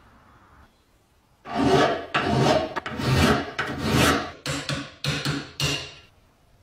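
Flat hand file being stroked across a metal part: about eight rasping strokes, starting about a second and a half in, the first four long and the last four shorter and quicker.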